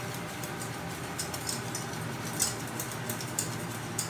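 Wire whisk ticking and scraping against a metal saucepan while whisking white sauce: quick, irregular light clicks, several a second.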